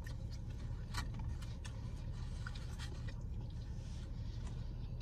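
Pizza being chewed with scattered soft mouth clicks and smacks, over a steady low rumble of the car's cabin.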